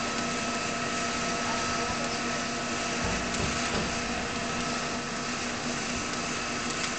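A steady mechanical hum over an even hiss, with a low rumble coming in about three seconds in.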